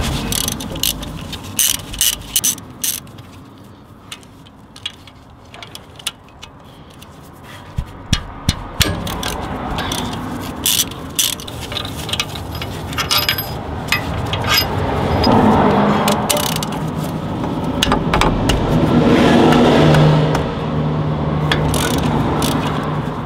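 Hand tools undoing the bolts that hold a Land Rover Discovery's front wheel hub: scattered sharp metallic clicks and knocks, then scraping as the hub is worked loose from the swivel housing. A motor vehicle's steady running sound builds through the second half.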